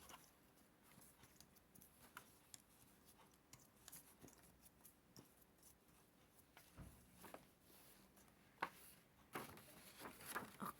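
Near silence with faint, scattered light clicks and taps of cardboard jigsaw pieces being handled and sorted on a table, a little more frequent near the end.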